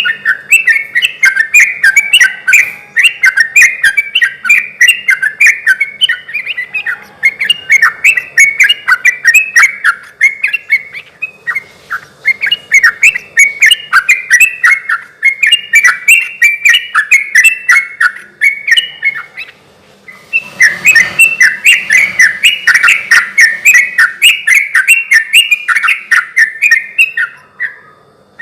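Yellow-vented bulbul (trucukan) singing persistently: long runs of rapid, bubbling chattering phrases, broken by two short pauses.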